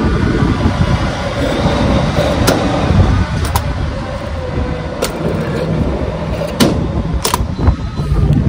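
Gas pump nozzle in a pickup's filler neck, fuel rushing through it while the nozzle's automatic shutoff clicks off again and again, several sharp clicks at irregular intervals. Clicking off early like this is typical of a fuel vent and charcoal evaporative canister clogged with dirt.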